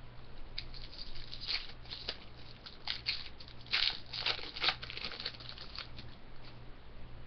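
Foil wrapper of a 2013-14 Upper Deck Artifacts hockey card pack crinkling and tearing as it is opened by hand, in short rustling bursts, loudest about four seconds in.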